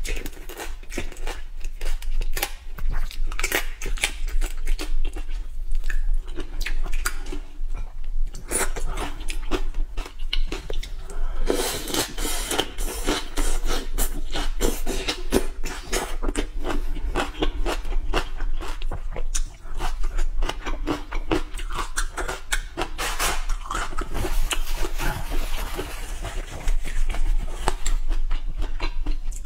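Close-miked chewing and biting of raw soy-marinated shrimp, then cilantro, with crunching and irregular wet clicks throughout.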